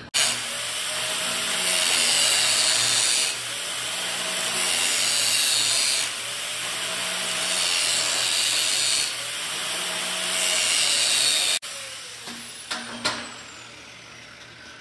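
A power tool deburring the inside of a freshly cut steel tube, its noise swelling and easing every second or two, then stopping abruptly near the end. A couple of light metal clicks follow.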